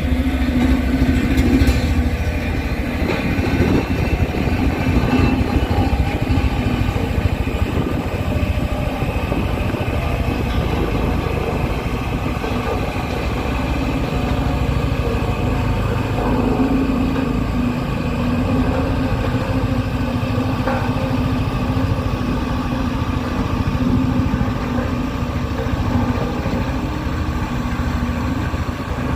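Diesel engine of heavy earthmoving machinery running steadily, with a continuous low hum.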